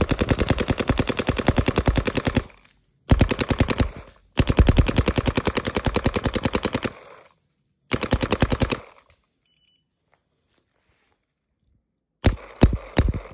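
Electronic paintball marker firing rapid strings of shots in four volleys of one to three seconds each. After a pause of about three seconds, firing resumes near the end.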